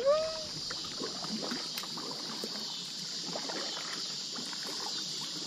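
Steady high-pitched insect chorus, with the soft dips and drips of a kayak paddle working a packraft along slow, flat water.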